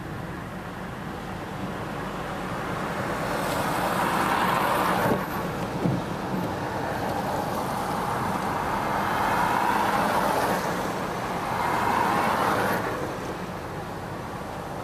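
Road traffic passing on a wet street, a steady hiss of tyres that swells several times as vehicles go by, mixed with a passenger train running across the railway bridge overhead. Two short knocks come about five and six seconds in.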